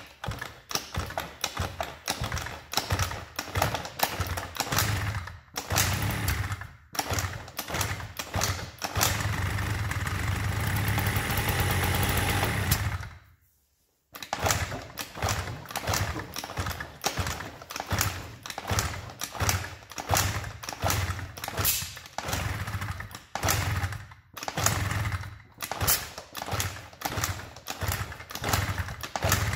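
Honda Dio 50cc two-stroke scooter engine running unevenly, sputtering and revving in irregular bursts. About halfway through it runs steadily for a few seconds, then dies away and stalls. It soon fires again and carries on sputtering and blipping, a scooter that has just been brought back to starting but does not yet run smoothly.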